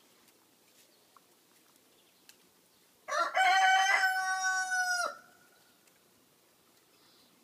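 A rooster crowing once, a single loud call of about two seconds that starts about three seconds in and breaks off sharply at the end.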